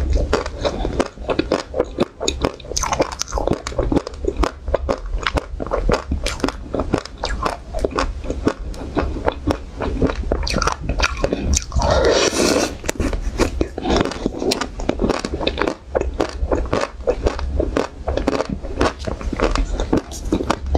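Close-miked eating sounds: teeth cracking the thin chocolate shell of an ice cream bar and chewing it, with many crisp crunches close together. About twelve seconds in there is one longer, smeared noise.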